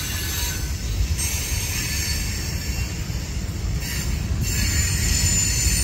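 Freight train's tank cars rolling slowly past: a steady low rumble of steel wheels on rail, with a high hiss on top.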